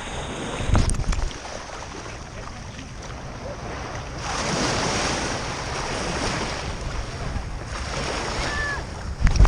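Ocean surf washing onto the beach, with wind buffeting the microphone; a wave surges up about four seconds in and slowly fades. A low thump about a second in, and another low rumble just before the end.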